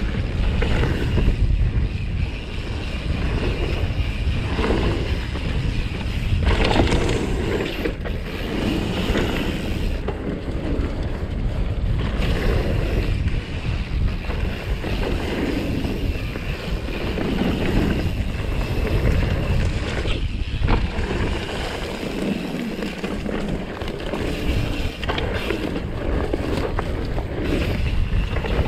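Wind buffeting a GoPro's microphone while a mountain bike descends a dirt singletrack at speed, with the tyres rumbling over the ground and the bike knocking and rattling over roots and bumps.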